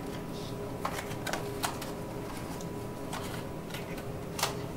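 A handful of light clicks and knocks from a rifle being handled on a bench rest, scattered irregularly over a steady background hum.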